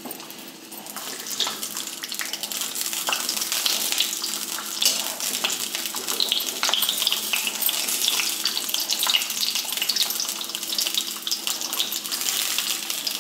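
Stuffed-gourd shells (parwal) shallow-frying in hot oil in an aluminium kadhai: a steady sizzle with frequent crackles. It grows louder over the first couple of seconds, and a slotted spoon moves through the pan as they are turned.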